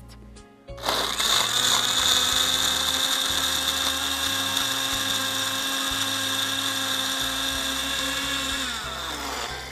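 Countertop electric blender switched on about a second in, its motor whining steadily at high speed as it blends yogurt, ice cubes and mint into a drink. Near the end it is switched off and the whine falls in pitch as the motor spins down.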